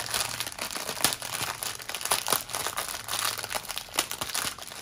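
Plastic packaging of a diamond-painting kit crinkling and crackling as it is handled, in a steady stream of irregular crackles.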